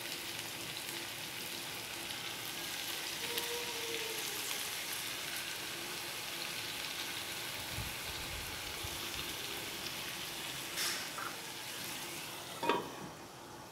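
Cauliflower florets frying with masala in a pan, sizzling steadily as they cook with a sprinkle of water. Two short, sharp clinks come in the last few seconds, the second louder.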